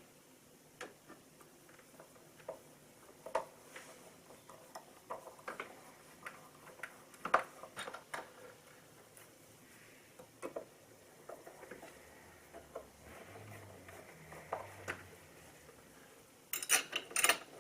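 Scattered light metallic clicks and clinks of a door handle and its screws being handled and fitted to a door, with a quick run of louder clicks near the end.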